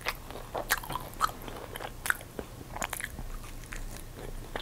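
Close-miked chewing of crispy fried chicken: irregular crunches and wet mouth clicks.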